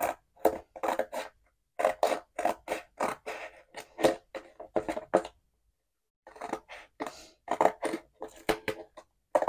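Scissors snipping through cereal-box cardboard faced with laminated vinyl sticker paper, in a run of short cuts at about two to three a second, pausing for about a second midway.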